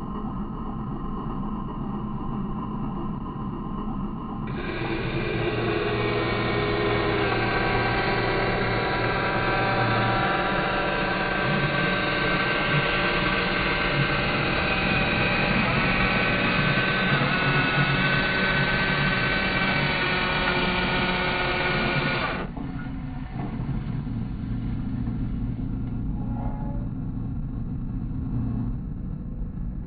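Small electric motors of a remote-control toy construction vehicle running in a steady, drill-like whine that starts about four seconds in and cuts off suddenly after about eighteen seconds, over a constant low hum.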